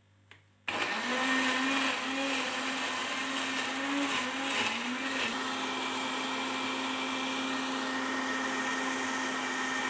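Countertop blender switched on about a second in, puréeing cooked red hot peppers with their cooking water. The motor's pitch wavers for the first few seconds, then runs steady.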